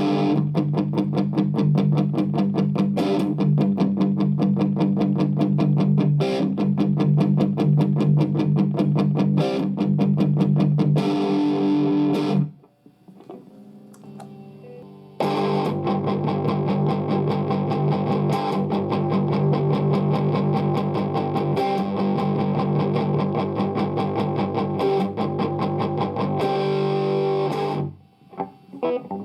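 Distorted electric guitar played through a Marshall 50-watt practice amp: a fast, dense riff for about twelve seconds, a short quieter gap, then held chords ringing out until they stop near the end.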